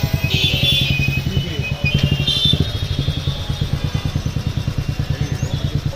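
A small engine running steadily with a rapid, even low pulse. Short high-pitched sounds come over it near the start and again about two seconds in.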